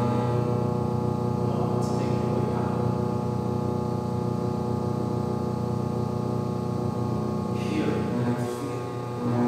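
Experimental music: a steady, layered electronic drone of several held tones from a looper and effects unit. Breathy hisses come in about eight seconds in.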